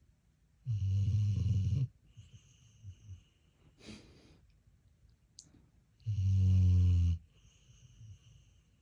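Snoring: two loud, low snores, each about a second long and about five seconds apart, with softer breaths between.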